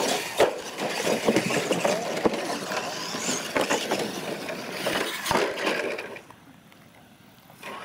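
R/C monster trucks running over a dirt obstacle course: whirring motors and gears with many sharp knocks and clatters as the trucks hit ramps and land jumps. It drops much quieter for about the last second and a half.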